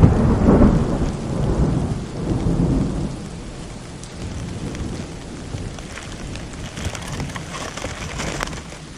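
Rolling thunder from a nearby thunderstorm: a loud rumble that breaks just before the start and dies away over about three seconds into a softer, steady rumble, with a light patter near the end.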